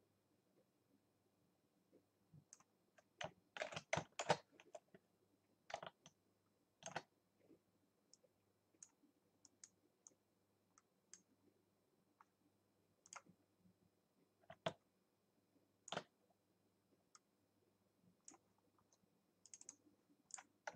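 Sparse clicks of a computer keyboard and mouse, with a quick cluster about four seconds in and single clicks a second or more apart after that, over near silence.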